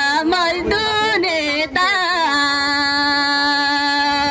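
A man singing solo into a handheld microphone. He sings a wavering, ornamented phrase, then holds one long steady note from about two seconds in.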